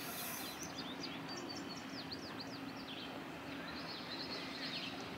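Small birds chirping and trilling in quick, high downsweeping notes, most busily in the middle, over steady outdoor background noise with a faint steady low hum.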